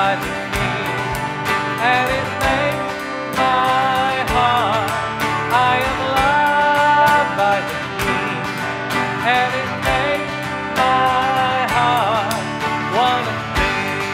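Church worship band playing a country-style song with acoustic guitar, electric bass, piano and drums keeping a steady beat, while a singing voice carries the wavering melody.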